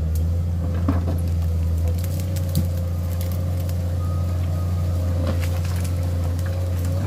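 Komatsu PC210 excavator's diesel engine running steadily under load as it moves a log-sled land pontoon loaded with steel tower members through mud, with scattered knocks and creaks from the load.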